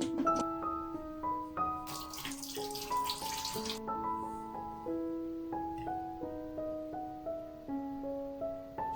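Gentle piano background music, with a water tap running into a sink for about two seconds, starting a couple of seconds in.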